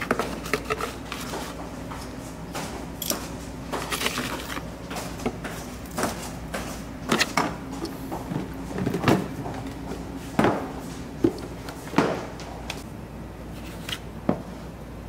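Plastic containers, a snap-on lid and small ceramic bowls handled on a worktop: irregular clicks, taps and knocks while powder is weighed out on digital scales, with the loudest knocks about nine, ten and twelve seconds in.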